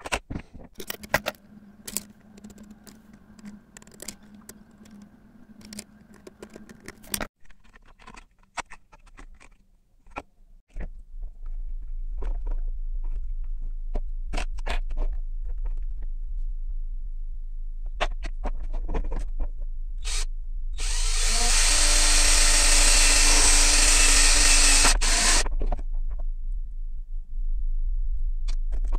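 Scattered clicks and taps of plastic parts being handled, then a steady low hum. Near the end a small electric drill runs loudly for about four seconds, boring holes in the clear plastic enclosure.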